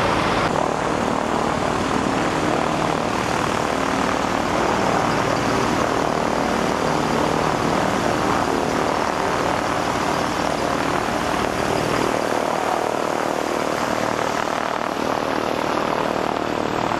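Light propeller airplane's piston engine running steadily: an even drone with a low hum and no breaks.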